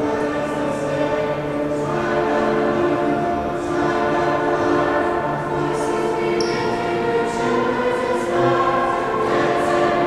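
Mixed-voice high school choir, girls' and boys' voices together, singing held chords that change every second or two.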